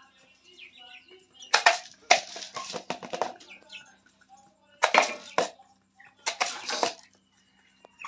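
Chicken wings flapping in four noisy bursts, the second the longest, over a faint steady hum.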